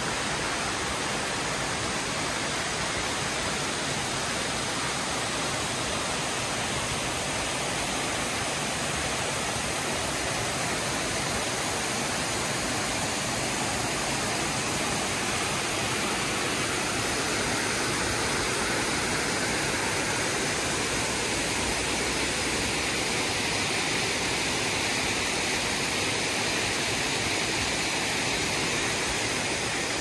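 Steady rushing of a mountain creek tumbling over rocks, turning a little hissier about halfway through.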